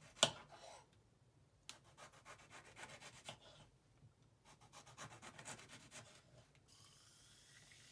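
Kitchen knife sawing slices off a lemon on a wooden cutting board: rapid scraping strokes in three short runs, with a sharp tap near the start.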